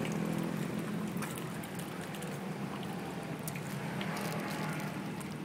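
A crowd of carp churning and gulping at the pond surface, making many small irregular splashes and slurps, over a steady low hum.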